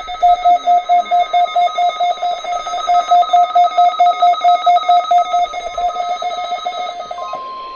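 Weather radio alert alarm: a rapidly pulsing electronic beep, about four beeps a second, sounding for a required weekly test. Near the end it gives way to the steady 1050 Hz NOAA Weather Radio warning alarm tone.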